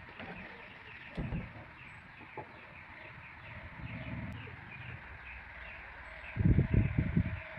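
Short high chirps from birds repeat steadily in the background. A brief low knock comes about a second in, and a louder cluster of dull thumps and rustle of close handling comes near the end.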